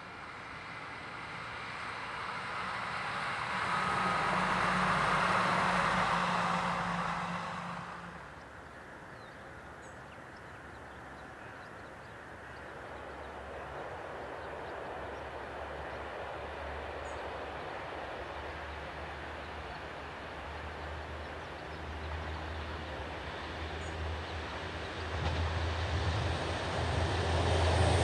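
A train passing: its noise rises to a peak and dies away about eight seconds in. Then a low, steady engine hum grows louder as another vehicle approaches.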